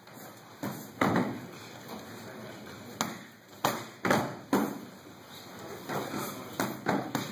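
Boxing gloves punching focus mitts and a shin kicking a Thai pad: about ten sharp pad smacks in quick combinations of two or three, each with a short echo.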